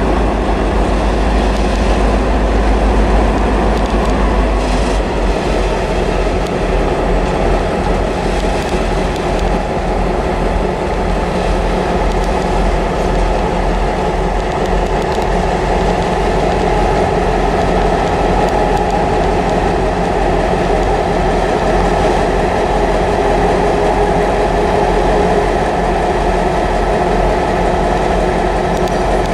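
HŽ class 2062 diesel locomotive running with a steady low drone as it moves slowly past with a train of loaded freight wagons.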